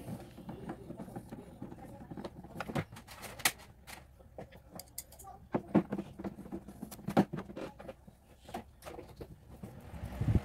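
Irregular light clicks and knocks, a few sharper ones, from hands working on the plastic base of a Mondial Premium NPF-51 bread maker: screws and a screwdriver against the bottom panel, then the power cord being moved.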